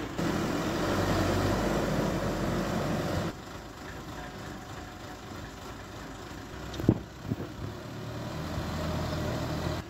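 ACE 20-ton crane's diesel engine running: close and steady for the first three seconds, then abruptly fainter as the crane is driven across the yard, growing louder again near the end. A single sharp knock about seven seconds in.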